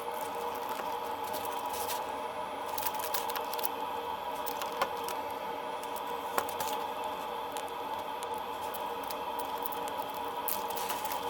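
Small plastic LEGO pieces clicking and scraping as they are handled and snapped together, with two sharper clicks about halfway through, over a steady hum.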